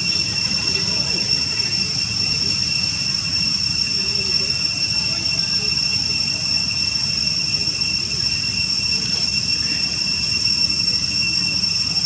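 Insects trilling in one steady, unbroken high-pitched tone, over a low rumble.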